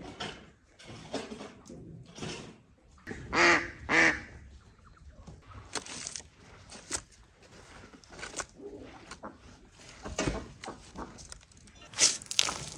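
Domestic waterfowl calling loudly twice in quick succession about three seconds in. Later come short scrapes and knocks of a bucket being filled with earth in a pit, and near the end a rush of loose soil thrown out onto a spoil heap.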